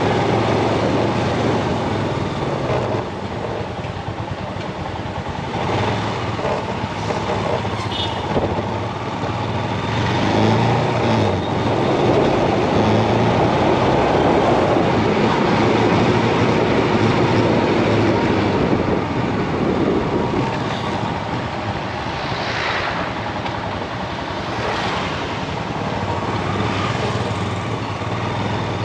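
Motorcycle running on the move, its engine a steady low hum under rushing wind and road noise on the handlebar-mounted camera's microphone.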